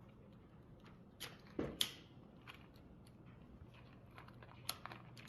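A few faint clicks and light knocks over a low steady hum.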